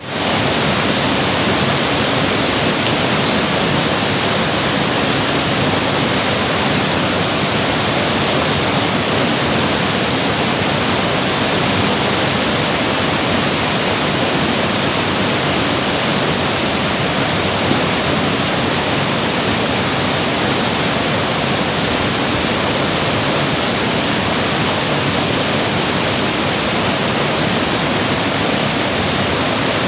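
Fast mountain river rushing and churning over rocks, a loud steady roar of water.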